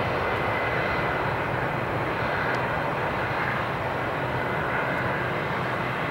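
Airbus A320's twin jet engines running as the airliner rolls out down the runway after landing: a steady jet roar with a faint high whine.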